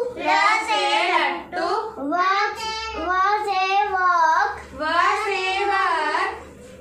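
A young girl reciting the Hindi alphabet in a sing-song chant, drawing out each letter-and-word phrase, with several phrases in a row.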